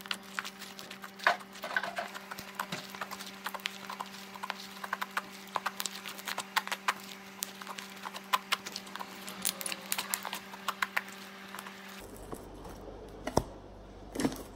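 Borax-activated pink slime being kneaded and stretched by hand, making a quick run of wet clicks and small pops. A steady low hum sits behind it and cuts off about twelve seconds in.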